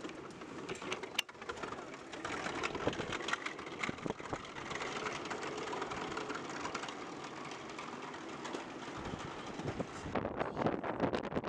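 Underwater ambience: a steady, dense crackle of small clicks and hiss. Near the end it gives way to a gustier, lower rushing sound.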